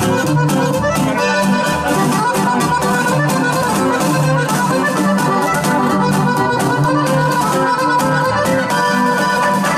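Live norteño conjunto playing an instrumental passage: accordion leading over strummed guitar and steady percussion hits.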